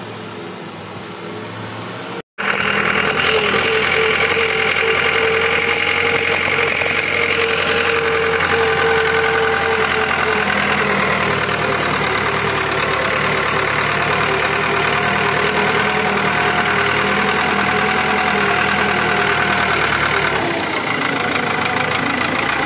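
Engine running steadily close to the microphone, loud and even, cutting in suddenly after a brief dropout about two seconds in; a fainter engine hum comes before it.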